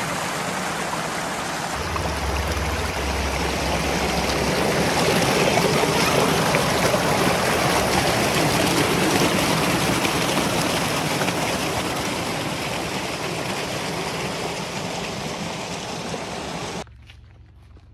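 Steady rush of running water, swelling in the middle and stopping abruptly near the end.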